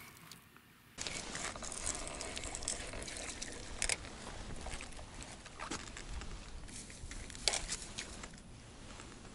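A hooked crucian carp splashing and dripping water as it is played and lifted out on a float rod, mixed with sharp clicks and rustles of handling; it starts about a second in, with the loudest clicks near four and seven and a half seconds in.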